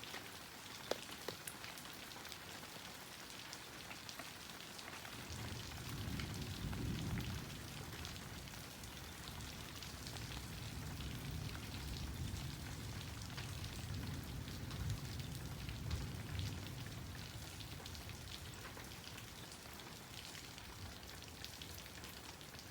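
Heavy rain pattering on a plastic greenhouse roof, with a few sharp drips early on. About five seconds in, a low rumble of thunder rolls in and lasts for about ten seconds before fading.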